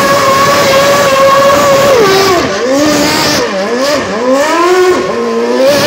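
Formula One car engine held at high, steady revs while the car spins its rear wheels doing donuts. About two seconds in, the revs drop and climb back again several times in quick swoops.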